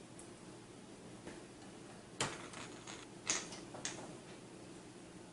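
Screws being driven by hand to fasten a power supply into a steel PC case: a few light metallic clicks and ticks, the sharpest a little over two seconds in.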